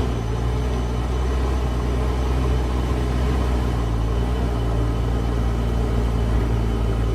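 JCB backhoe loader's diesel engine running at a steady speed, with a deep, even drone.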